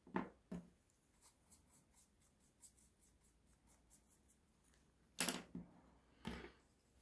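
Drawing tool scratching in short, quick strokes, with a few louder knocks: two near the start and two or three more about five to six and a half seconds in.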